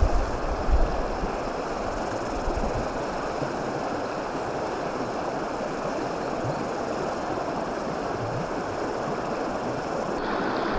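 Shallow, stony stream running, a steady rush of water, with a few low bumps near the start.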